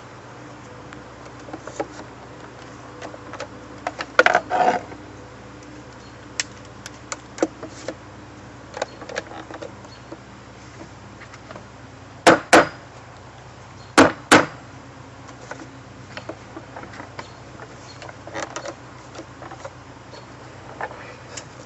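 Scattered clicks and knocks of handling parts, with two pairs of loud sharp knocks about halfway through, over a steady low hum.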